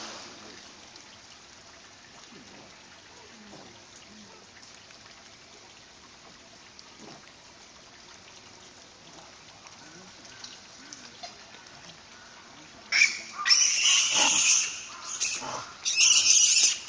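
Japanese macaques calling in several loud, harsh bursts that begin about thirteen seconds in, after a stretch of quiet background.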